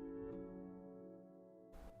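Soft background music: held, gentle notes with a few soft new notes struck, fading down toward the end, with a brief hiss just before the close.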